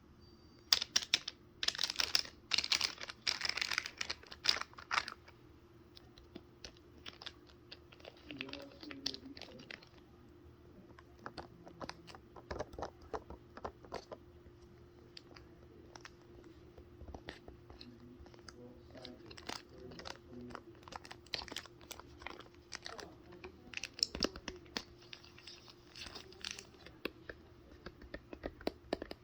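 Fidget board being handled, with many quick clicks and taps throughout and scratchy rasping bursts from about one to five seconds in.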